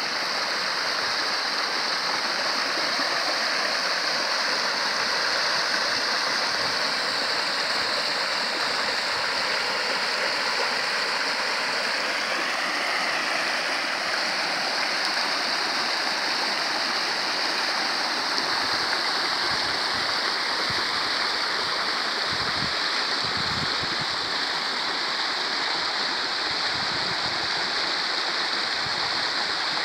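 Stream water rushing and splashing over rocks and a stone ledge, a steady unbroken rush of white water.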